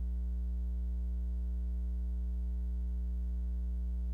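Steady electrical mains hum: a low, unchanging drone with a set of fainter, higher steady tones above it.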